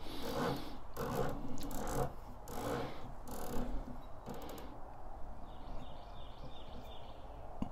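Elevation turret of a Discovery Optics VT-T riflescope being turned by hand through many detents in a tracking check, giving runs of quick clicks in several bursts over the first four seconds or so, then quieter.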